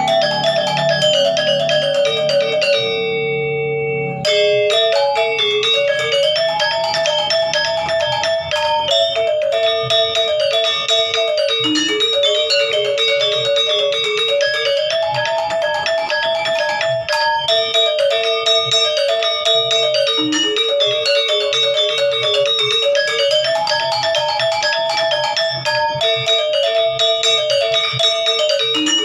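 Gamelan music: bright struck metal-keyed instruments play a fast, repeating melody that comes round about every eight seconds. The notes ring for a moment in a short pause about three seconds in, then the pattern picks up again.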